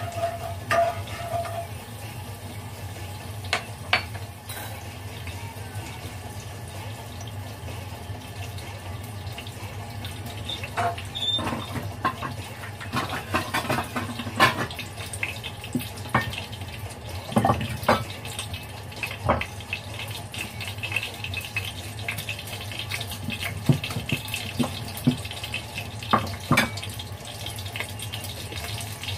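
Steady water-like hiss in a kitchen, with scattered clinks and knocks of a pot and utensils on a gas stove.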